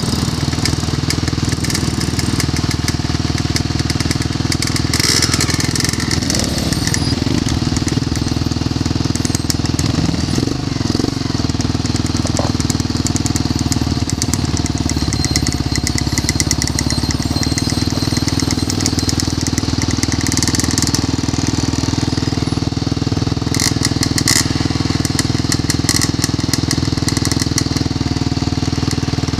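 Quad bike (ATV) engines running steadily while riding a rough dirt trail, with scattered short clicks and rattles.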